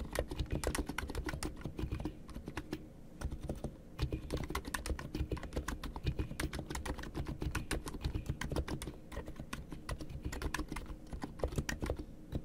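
Fast continuous typing on an ABKO K990 V3 Skymoon electro-capacitive (Topre-style) keyboard with tall PBT SA-profile keycaps and freshly lubed Cherry-style plate stabilizers: a dense run of keystroke clacks that thins out briefly a couple of seconds in.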